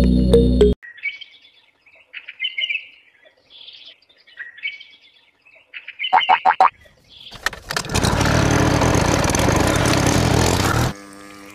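Birds chirping, then a quick run of clicks, then the small DC motor of a miniature model water pump running with a loud, steady whir that cuts off suddenly near the end.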